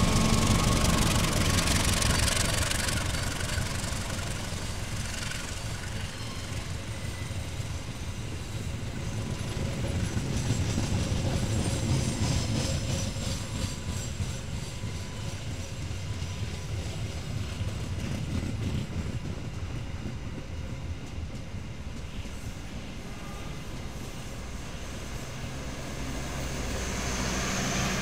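Indonesian passenger train passing slowly. The CC 203 diesel-electric locomotive's engine is loudest in the first few seconds, then the coaches roll by with wheels clicking over the rail joints. Near the end a power car's generator hum grows louder.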